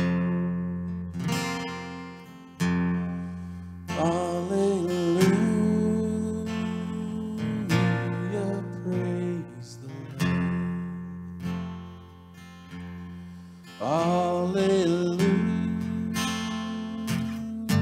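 Acoustic guitar strumming slow chords, with a wavering melody line coming in over them twice.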